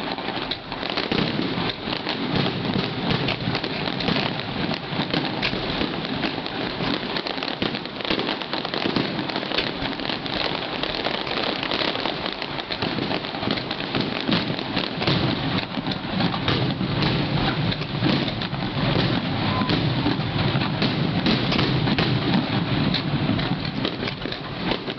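Fireworks going off in a continuous, dense barrage: rapid overlapping cracks and deeper bursts with no pause between them.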